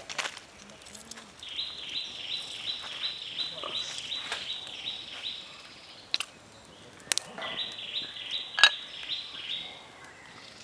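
Bird chirping in a fast, even series of high notes, about four a second, for about four seconds, then again for about two seconds after a short break. A few sharp clicks are heard; the loudest comes about two-thirds of the way through.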